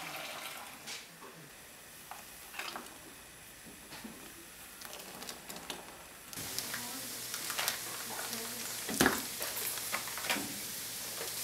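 Quiet kitchen food-preparation sounds. First come soft splashes and light clicks as a blended liquid is poured and stirred in a pot. About six seconds in, a steady hiss sets in with wet clicks and two sharper knocks while hands knead raw ground meat.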